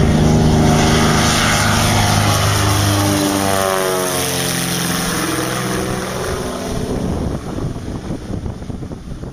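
Twin piston-propeller Britten-Norman Islander passing low overhead: a loud, steady propeller drone that drops in pitch about three seconds in as the plane goes by, then fades as it climbs away.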